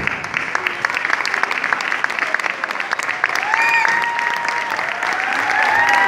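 Theatre audience applauding, a dense, steady patter of many hands clapping. A few held, slightly gliding tones come in past the middle and carry on over the clapping.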